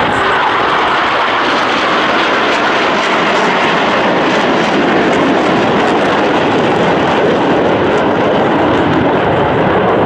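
Jet engines of a formation of KAI T-50B trainers, each powered by a single General Electric F404 turbofan, passing overhead as a loud, steady jet noise. A whine falls in pitch during the first second.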